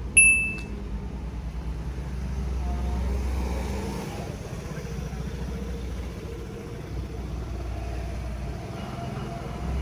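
A short electronic beep right at the start, then a steady low mechanical rumble.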